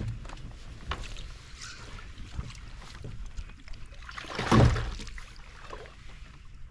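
A hooked bass splashing and thrashing at the side of a kayak, with small knocks and rattles of gear, then a loud splash about four and a half seconds in as it is scooped into a landing net.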